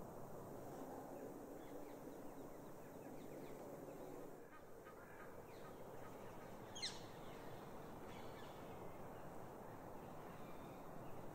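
Faint dawn parkland ambience with bird calls, including one sharp call falling steeply in pitch about seven seconds in.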